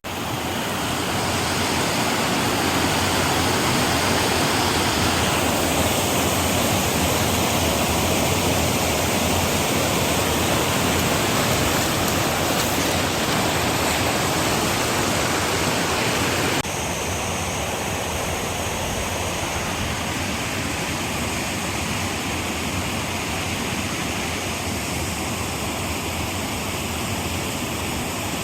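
Steady rushing water, an even full-range hiss that drops a little in level about 17 seconds in.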